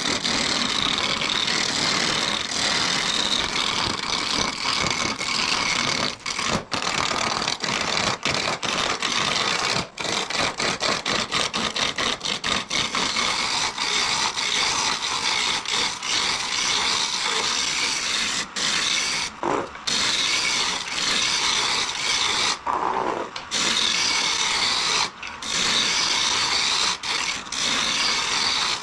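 A gouge cutting a spinning blank of fresh maple on a wood lathe, a steady rough hiss of shavings coming off the wood. It breaks off briefly a few times.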